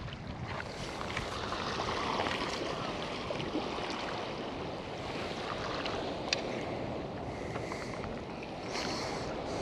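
Sea waves washing against a stone pier, a steady rushing noise, with wind buffeting the microphone and a few faint clicks.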